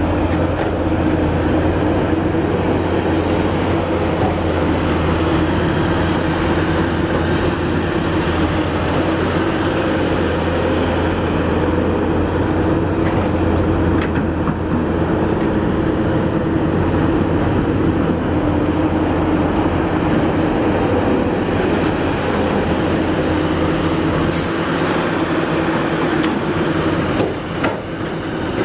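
Kobelco SK350 excavator's diesel engine running steadily under working load, a loud continuous drone with a steady engine tone. The lowest part of the drone eases off about three-quarters of the way through.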